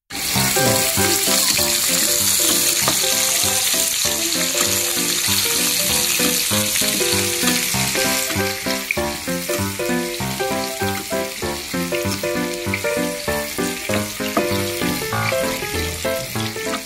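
Chopped red onion sizzling in hot oil in a nonstick wok while a metal spatula stirs it. The sizzle is strongest over the first half and then eases a little. Background music with a plucked-sounding melody plays underneath.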